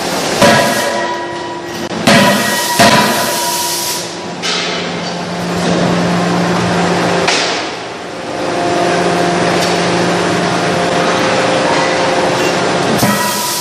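Hot-forging line machinery: several heavy metallic impacts in the first three seconds, then a steady machine hum with a few held tones, broken by one more knock about seven seconds in.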